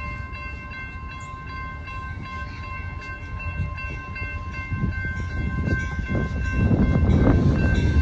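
Level-crossing warning bell ringing steadily. About six seconds in, the rumble of the approaching Amtrak Texas Eagle passenger train swells and grows louder.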